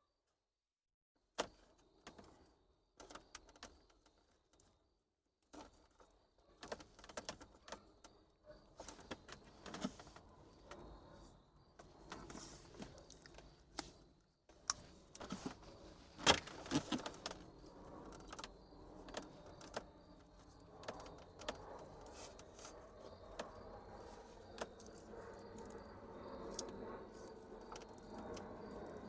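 Scattered clicks, rattles and rustling of hands handling parts and wiring inside a vehicle, with the loudest sharp click about halfway through and a steadier low background noise building in the last third.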